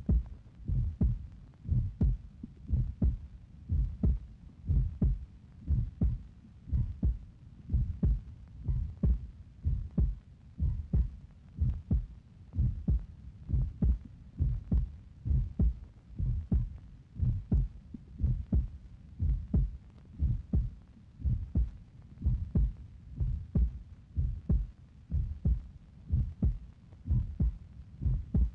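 Steady, regular low thumping, repeating at an even pace of roughly one to two thumps a second, with a heartbeat-like pulse.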